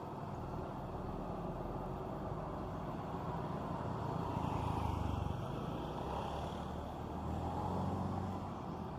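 Bus engine running at low revs, a steady rumble that grows louder for a couple of seconds around the middle and again near the end.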